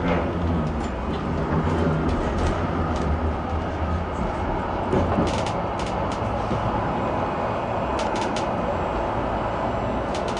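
City tram running along street track, heard from inside the cab area: a steady rumble with a few sharp clacks from the wheels about halfway through and again near the end.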